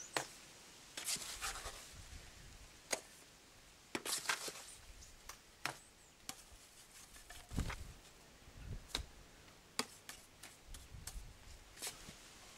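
Trowel working sand-and-cement mortar: irregular scrapes and taps as it scoops from a bucket and slaps dollops onto a stone wall, with a few duller thuds.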